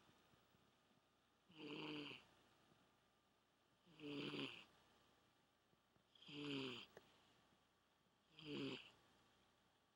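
Domestic cat snoring in its sleep: four snores at an even pace, about two seconds apart, each lasting under a second.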